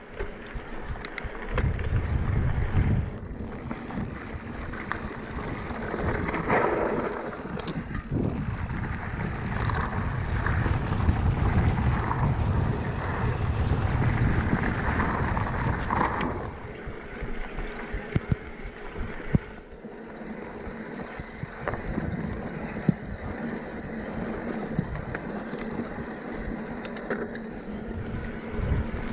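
Electric mountain bike ridden over dirt and gravel, heard through wind rumbling on the action camera's microphone. There is tyre noise and many small clicks and rattles from the bike over bumps, and the level rises and falls as the riding varies.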